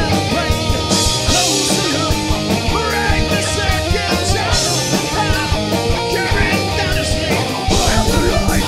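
Live heavy rock band playing: electric bass, electric guitar and a drum kit with crashing cymbals. About a second before the end the drums change to a fast, even beat.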